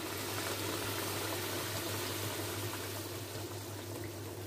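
Curd-based fish curry boiling in a kadai, a steady bubbling hiss as the gravy reduces and thickens, with a low steady hum beneath.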